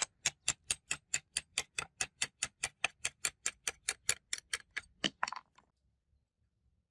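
A run of sharp, evenly spaced ticks, about four or five a second, ending after about five seconds with two louder clicks.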